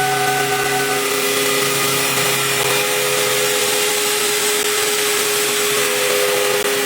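A CNC machine running steadily, a constant whir with several steady whining tones. One tone drops out about a second in and another comes in near the end.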